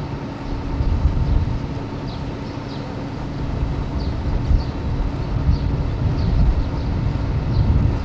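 Low rumble of an approaching State Railway of Thailand diesel-electric locomotive, swelling and easing in level, with a faint steady hum and short high chirps over it.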